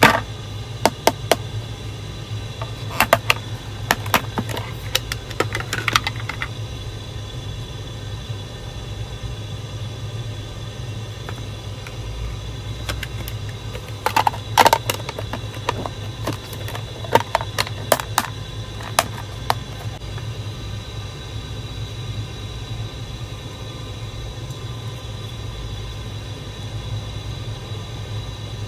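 Mechanical keyboard keycaps clicking and tapping in scattered clusters, over a steady low hum.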